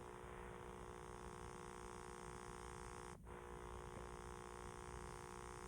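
Faint steady electrical hum over a light hiss, cutting out for a moment about three seconds in.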